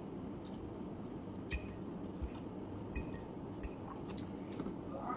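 A person chewing a mouthful of noodles close to the microphone, with about six small sharp clicks spread through, over a low steady room hum.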